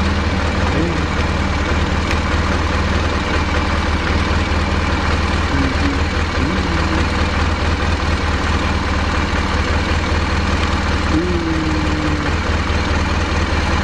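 BMW R1200GS boxer-twin engine idling steadily, with no abnormal noise: a healthy idle.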